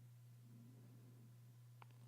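Near silence: room tone with a faint steady low hum and one faint click near the end.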